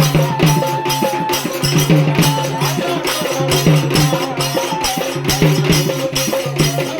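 Instrumental passage of a Marathi devotional folk song: quick, steady hand percussion with a held melody line that comes and goes, without singing.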